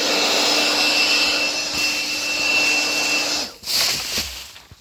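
Leaf blower running steadily with a high whine and rushing air, shut off about three and a half seconds in, with a short burst just after it stops.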